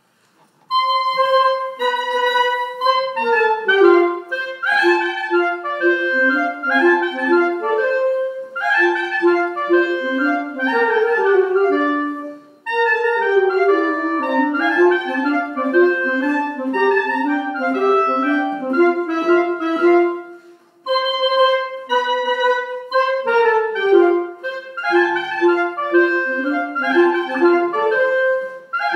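A small group of live instrumentalists playing a composed piece of concert music: a lively melody of short notes over moving lower parts. It starts about a second in and breaks off briefly twice.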